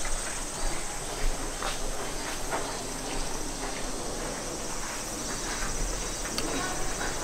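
Steady high-pitched shrilling of insects in summer, with a few faint taps.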